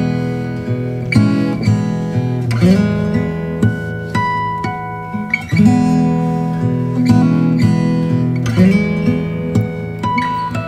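Background music of plucked and strummed chords on a stringed instrument, changing every second or so.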